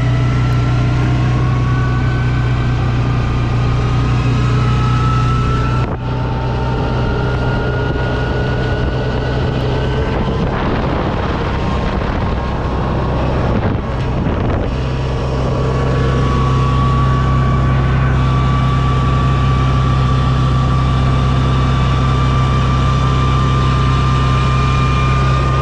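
Side-by-side UTV engine running while driving, a steady low hum under a whine that slowly climbs in pitch, with wind rushing on the microphone. The whine drops out briefly about six seconds in, and a rougher rush of noise takes over for a few seconds near the middle before the whine returns.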